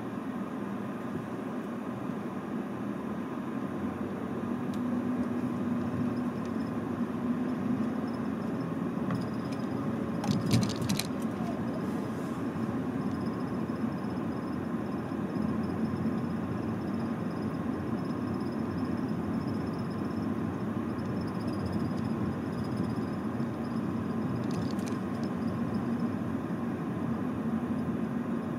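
Steady motor-vehicle engine and road noise. A short burst of sharp clicks comes about ten and a half seconds in, and a fainter one near twenty-five seconds.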